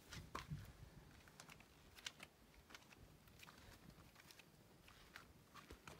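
Near silence with faint, scattered light clicks and taps, irregular, the clearest about half a second and two seconds in.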